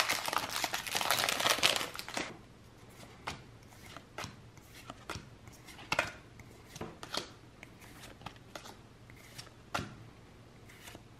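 Foil Pokémon card booster pack crinkling as it is opened and the cards pulled out, for about the first two seconds. Then a string of short card snaps and flicks as the cards are slid from the front to the back of the stack one at a time.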